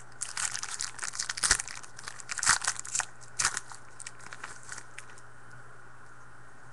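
Wrapper of a trading-card pack crinkling and tearing as it is opened: a quick run of crackles over the first three and a half seconds, then thinning out.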